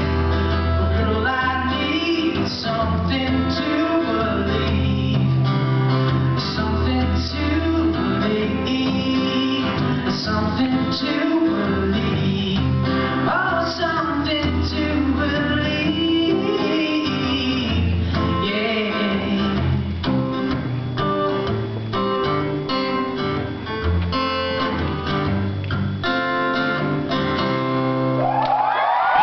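Acoustic guitar strummed and picked live, with a man singing along into the microphone.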